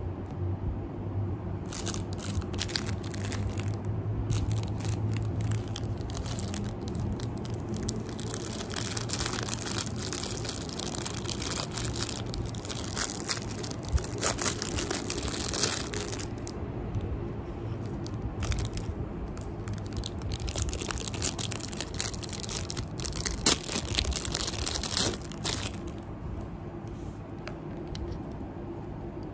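Plastic packaging crinkling and tearing in bursts as a parcel is unwrapped and plastic-bagged hair claw clips are handled, over a low steady hum.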